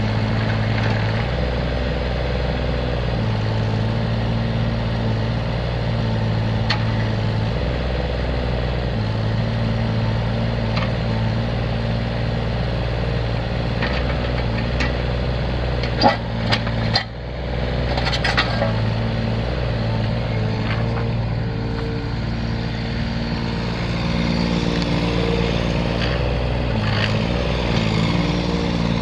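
A three-cylinder Kubota diesel engine in a mini excavator running steadily, its low hum shifting in strength every few seconds. A few sharp metallic knocks come about two-thirds of the way through.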